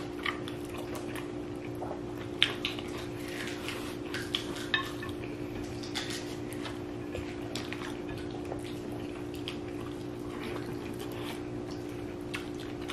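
People eating a meal, with scattered small clicks and taps of plates and utensils over a steady low hum.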